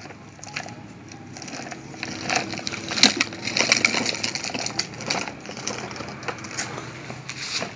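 Hard plastic wheels of a child's ride-on toy scooter rattling and grinding as it rolls over rough concrete, with irregular knocks and a sharp click about three seconds in.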